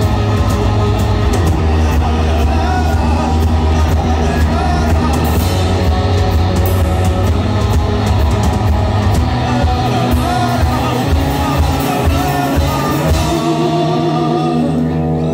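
Live rock band playing loud: distorted electric guitar, bass guitar and a drum kit under a shouted vocal. About thirteen seconds in, the drums stop and the last chords ring on.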